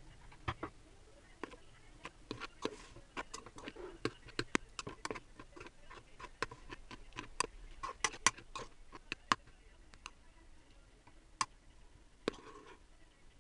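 A spoon clicking and scraping against a pot while stirring vinegar into cooked rice for sushi: irregular sharp clicks, several a second, thinning out after about nine seconds.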